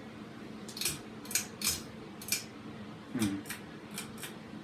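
Ceiling fan light kit's pull-chain switch being pulled again and again, a run of about ten short sharp clicks. The light is not coming on.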